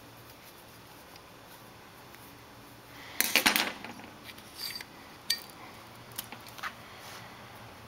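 Metal parts of a Reznor waste oil burner nozzle line assembly clattering and scraping as they are worked loose from a bench vise: a loud clatter a little after three seconds, then a few lighter metallic clicks.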